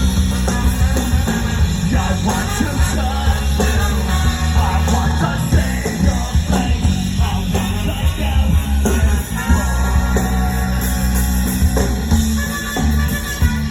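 A live rock band playing loudly, with guitar, drums and bass and singing over the top.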